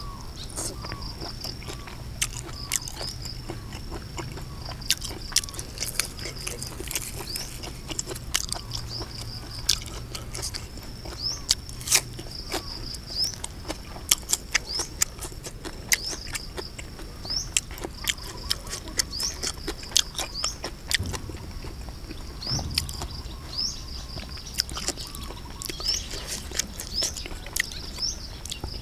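Close-up mouth sounds of eating: irregular sharp clicks and smacks of chewing, at times in quick clusters. Behind them runs a steady high-pitched chirring.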